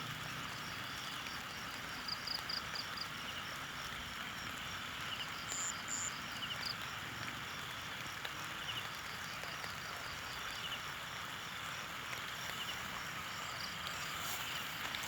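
Steady hiss of rain falling, with faint insect chirping repeating at an even pace over it.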